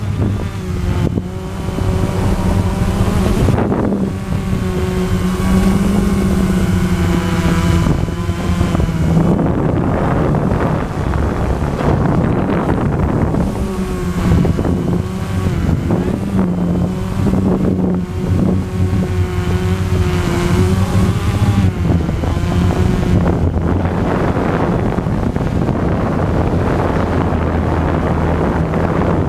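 RC EYE One Xtreme quadcopter's motors and propellers buzzing, heard from a camera on the drone itself. The pitch wavers up and down as the throttle changes, with wind rushing over the microphone.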